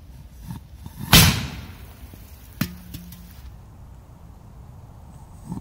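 A P2000 firecracker going off under a metal can: one sharp bang about a second in that dies away over about half a second, then a smaller sharp crack about a second and a half later. The P2000 did not go off very well.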